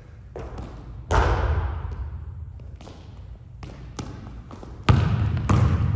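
A basketball being dribbled on a hardwood gym floor, the bounces echoing around the hall: a loud bounce about a second in and another near the end, with fainter knocks between.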